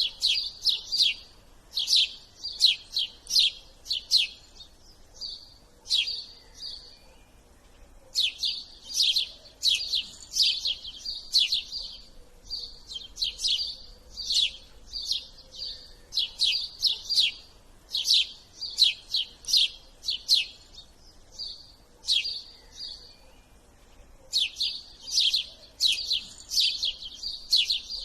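A small bird chirping: quick runs of sharp, high notes, several a second, in phrases a few seconds long with short pauses between them.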